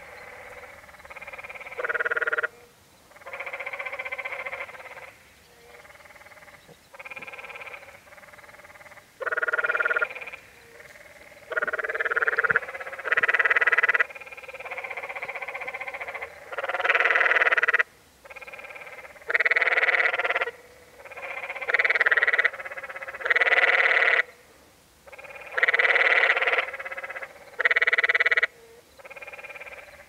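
Canyon tree frogs calling in a chorus: short rattling calls, each about a second long or less, one after another every second or two. Loud calls from a near frog alternate with fainter ones from others.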